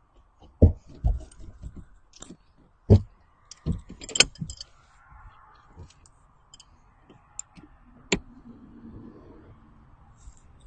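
Metal hand tools clinking and knocking: irregular sharp clicks and a few heavier knocks, with the loudest clusters in the first half and one sharp click about eight seconds in.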